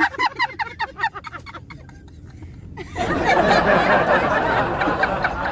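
Women laughing in a car's back seat: a run of quick giggles, then from about three seconds in several of them laughing together more loudly, over the low rumble of the moving car.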